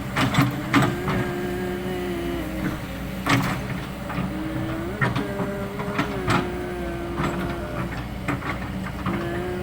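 Kobelco SK200 hydraulic excavator at work: a steady engine hum with a whine that steps up and down in pitch, broken by sharp knocks and clanks every second or two.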